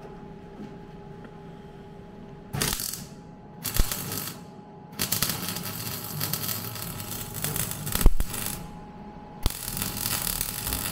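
MIG welder arcing on the car's steel body panel in short runs of crackling and sputtering: a brief burst about two and a half seconds in, then a longer run of several seconds, and another near the end.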